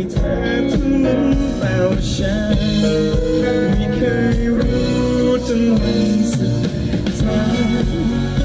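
Live music: an acoustic guitar strummed, with a man singing over it.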